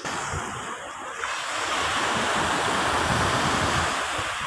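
Sea surf washing ashore in a steady rush, with wind buffeting the microphone in low rumbles.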